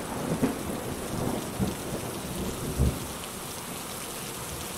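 Heavy rain pouring steadily, with a few low rumbles of thunder swelling and fading.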